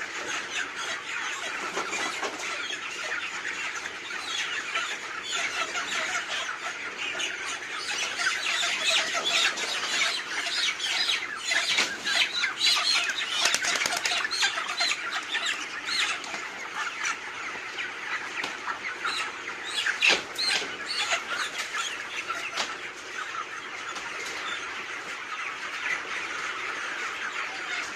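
A flock of chickens clucking and squawking, with bursts of wing-flapping. It grows busier and louder in the middle, with a sharp flurry about twenty seconds in.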